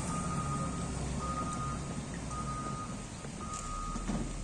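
Reversing alarm of a CAT 140GC motor grader beeping about once a second, four beeps, over the low running of its diesel engine as the machine backs up.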